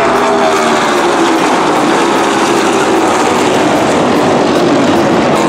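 A pack of NASCAR Cup stock cars' V8 engines running at speed, many engine notes overlapping and drifting in pitch.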